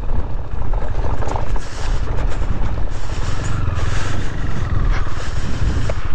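KTM 390's single-cylinder motorcycle engine running steadily at low speed as the bike rolls over gravel, with another motorcycle riding off nearby.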